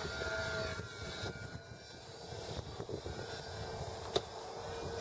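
Radio-controlled model airplane's motor running at a steady, high whine as the plane flies, with wind rumbling on the microphone. A single sharp click comes about four seconds in.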